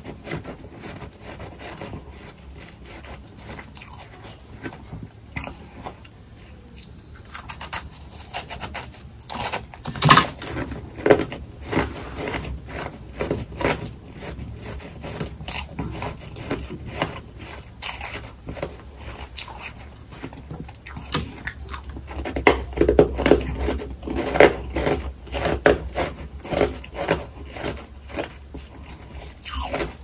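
Close-up chewing and crunching of humidifier freezer frost, a soft powdery ice, as a rapid run of small crackling crunches. It grows louder about a third of the way in and again for a stretch past two-thirds through.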